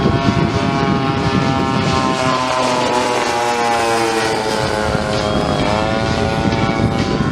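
Propeller engines of two radio-controlled scale model Spitfires flying past. The engine note slides slowly down in pitch as one plane passes, and a note bends up and back down again near the end.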